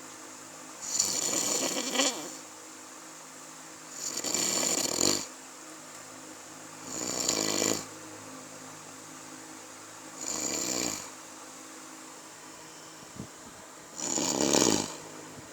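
A person snoring loudly in sleep: five snores, each about a second long, coming roughly every three seconds.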